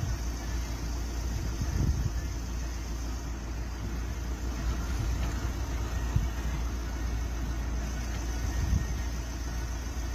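A vehicle engine idling, a steady low rumble, with a few faint knocks.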